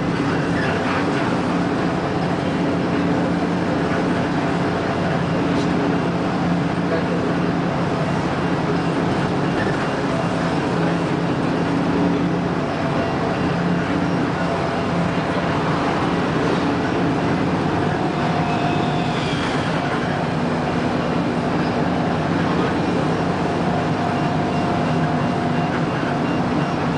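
Steady, loud running noise of a large vehicle in motion, with a low engine hum and faint higher whining tones that come and go.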